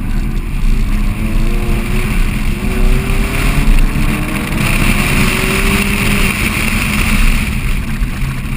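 Mazda MX-5 Miata's 2.0-litre four-cylinder engine running under load, its note slowly rising in pitch through the middle, with a steady hiss that grows louder for a few seconds past the middle.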